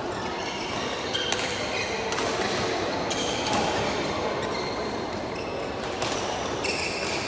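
Scattered sharp badminton racket hits on a shuttlecock, five or so, each ringing briefly in a large echoing hall over a steady background hum.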